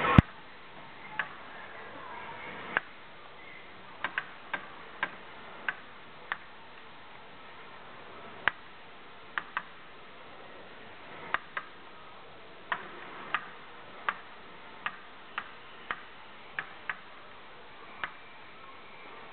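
Shooting game: a string of sharp clicks and knocks at irregular intervals, some in quick pairs, as players shoot the small gear targets. The loudest crack comes right at the start.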